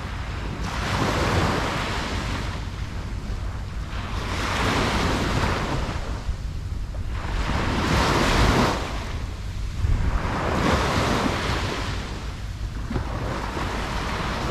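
Ocean surf breaking on a beach: waves wash in and recede in repeated surges every two to three seconds, over a steady low rumble of the sea and some wind on the microphone.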